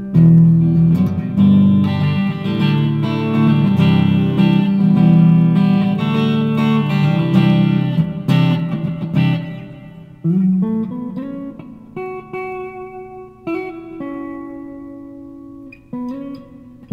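Gibson SG electric guitar played through an amplifier high up the neck: dense strummed chords for about ten seconds, then sparser picked notes and chords ringing out with short gaps.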